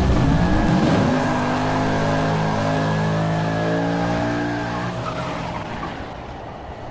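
Car engine revving up, then held at high revs during a tyre burnout, with squealing tyres; the sound fades out over the last few seconds.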